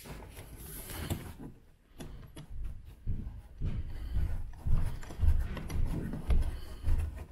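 Hands working a metal washer and nut onto a bolt up behind a plastic mudflap and wheel-arch liner: irregular plastic knocks, scrapes and clicks, busier in the second half, over dull low thumps.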